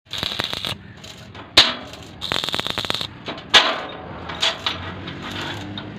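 Stick (arc) welding: short bursts of crackling, hissing arc, each under a second, as small steel brackets are tack-welded onto a steel tube frame, with two sharp cracks in between.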